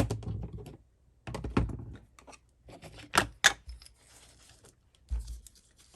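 Paper and craft materials handled on a tabletop: bunches of quick clicks, taps and rustles, with a dull thud a little after five seconds.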